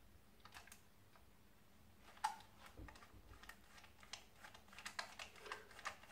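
Faint, irregular small clicks and taps of a small screwdriver working against the plastic body of a Lima HST model power car, growing more frequent from about two seconds in.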